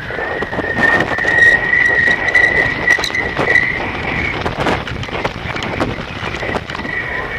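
Wind buffeting a kite in flight, picked up by the camera riding on it: a steady high whistle under a rush of wind, with irregular rattling and flapping clicks from the kite and the camera mount as it swings.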